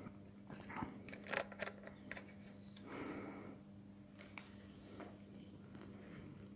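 Faint handling sounds of an archer readying a recurve bow: a few light clicks and short rustles as an arrow is taken up and nocked onto the bowstring, with a soft rustle of clothing partway through. A steady faint low hum runs underneath.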